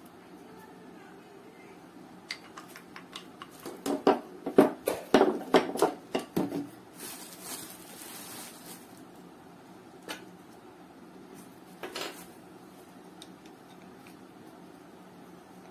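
Handling of plastic cookware handles in bubble wrap: a quick run of knocks and clatter about four seconds in, then a crinkling rustle of bubble wrap, and later a couple of single clicks.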